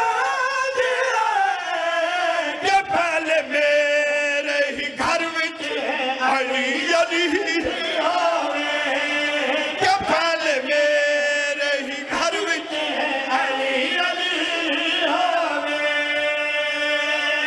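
Men's voices chanting a devotional refrain together into microphones over a PA, with long held notes. A few sharp thumps cut through it.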